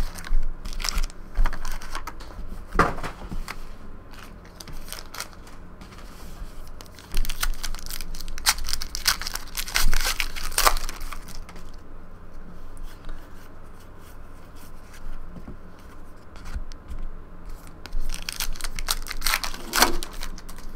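Trading-card pack wrappers being torn open and crinkled by hand, in bursts of crackly tearing near the start, around the middle and near the end, with quieter rustling of cards in between.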